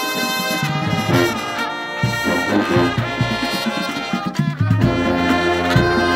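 Drum corps horn line of bell-front trumpets and mellophones playing together in full chords, the sustained notes changing every second or two.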